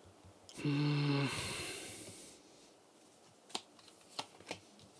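Tarot cards being handled on a table: a hissing slide of cards about a second in, then three sharp light clicks as cards are tapped or set down. A short hummed 'mm' comes with the slide.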